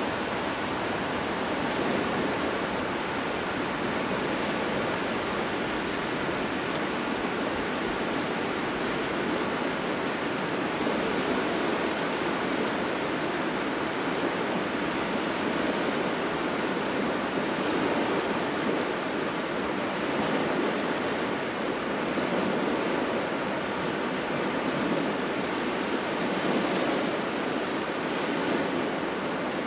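Small waves washing on a shore in a strong wind: a steady rushing wash that swells and eases gently every few seconds.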